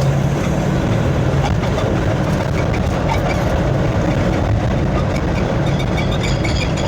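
Toyota Land Cruiser pickup's 1VD-FTV 4.5-litre V8 diesel running while the vehicle is driven, a steady low engine hum under road and drive noise. The engine has a misfire and knock under light throttle in second gear, which the mechanic puts down to a leaking or blocked injector.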